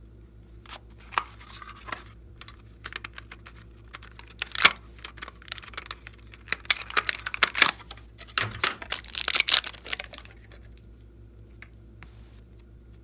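Glossy slime worked by hand, giving a run of sticky clicks and crackling pops. These come thickest in the middle and die away about three-quarters of the way through.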